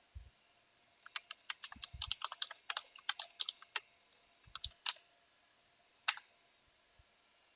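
Typing on a computer keyboard: a quick run of keystrokes, a short pause, a few more, then a single louder keystroke about six seconds in. A few faint low thuds come in between.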